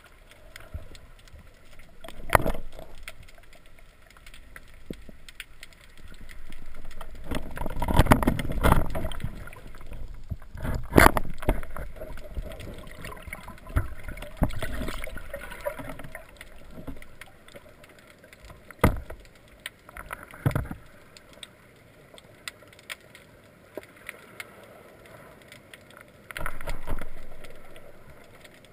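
Water sloshing and gurgling with irregular swells and several sharp knocks.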